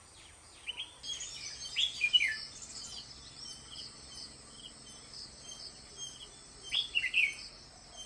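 Red-whiskered bulbul singing: short bursts of warbling, chirping notes, loudest about two seconds in and again near seven seconds, with fainter repeated chirps between and a steady high hiss behind.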